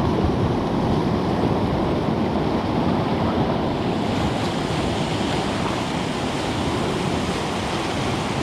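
Sea surf washing and surging over shore rocks, a steady rush of water with wind on the microphone.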